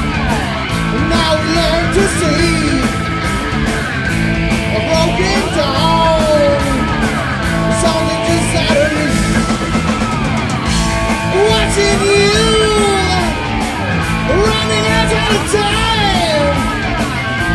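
Stoner rock band playing live: electric guitar and bass over drums with steady cymbal strokes, and a man singing a melody that bends up and down in pitch.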